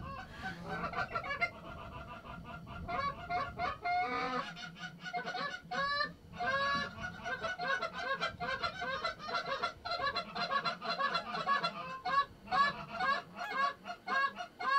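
Canada goose honks and clucks: many short calls in quick, overlapping succession, growing louder and busier from about four seconds in.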